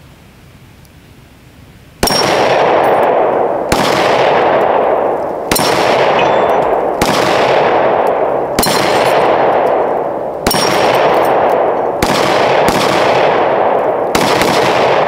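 Gunshots, nine in all, fired about one and a half seconds apart starting about two seconds in. Each shot trails a long echoing tail that carries into the next.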